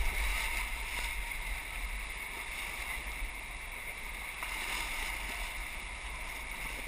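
Steady rush of whitewater river rapids around a raft, with a low rumble on the microphone; a little louder in the first couple of seconds, then even.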